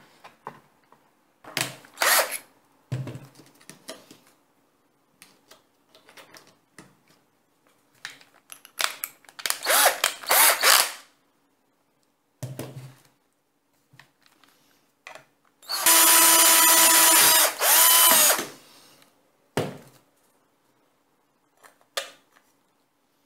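Black & Decker cordless drill running for about two seconds, drilling a hole in the vacuum cleaner's plastic housing to mount a switch; its whine drops in pitch as it winds down. Scattered clatter and rustling of parts being handled come before it.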